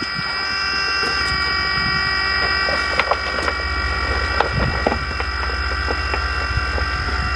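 AirDog II-4G 165 GPH electric lift pump running steadily as it primes a diesel fuel system, purging air out through its fuel and water-separator filters. It makes a steady whine of several pitches over a low hum, with a few faint clicks.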